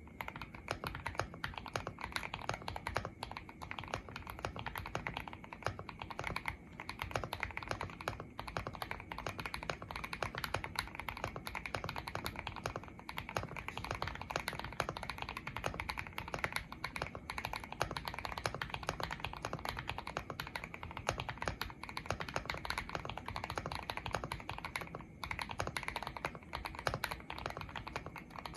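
Continuous fast typing on a mechanical keyboard built from lubed linear KTT Kang White V4 switches on a polycarbonate plate, with foam and tape mods and GMK-profile keycaps: a dense run of deep, muted keystrokes.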